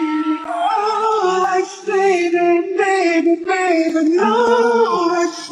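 A sung vocal performance, the masked contestant's voice lowered by about two semitones in a pitch-shifting tool, with long held notes that bend in pitch.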